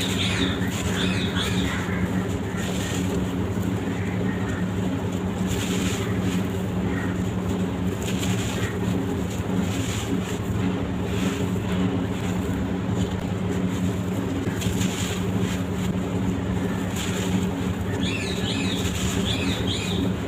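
Dry sand-cement blocks crumbling with a continuous gritty crunching, over a steady low hum. Brief chirps come near the start and again near the end.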